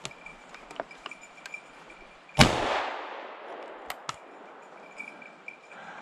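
A single shotgun shot about two and a half seconds in, sharp and loud, its report dying away through the forest over about a second: a hunter firing at a grouse flushing from the trees. Two sharp clicks follow about a second and a half later.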